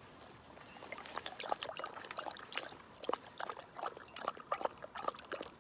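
An English setter lapping a drink from a mug: quick, irregular wet laps and splashes, starting within the first second.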